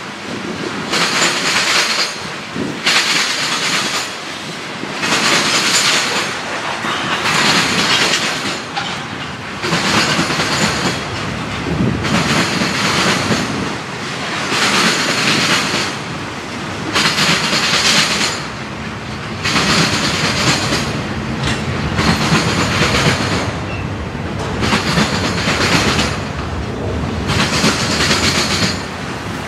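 A CSX mixed freight train of tank cars, covered hoppers and boxcars rolling steadily past. Its wheels clatter in a regular rhythm that swells loud each time a car's wheel sets go by, about every second to second and a half.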